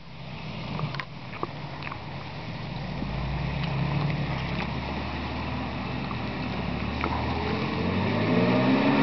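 Suzuki Samurai's engine pulling the off-roader along a muddy trail, growing louder as it approaches, with the revs rising near the end. A few sharp clicks in the first two seconds.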